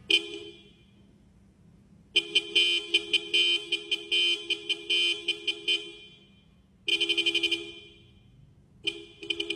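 Car horn sounded in a series of blasts: a short toot, then a long run of rapid stuttering toots, a quick burst of pulses, and more short toots near the end.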